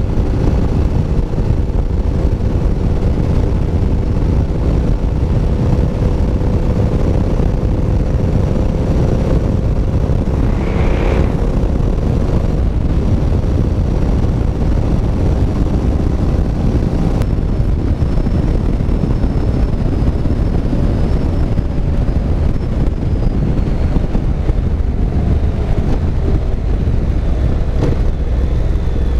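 Wind rushing over the microphone, with a Honda NC750X's parallel-twin engine running steadily underneath at road speed. A brief hiss swells and fades about eleven seconds in.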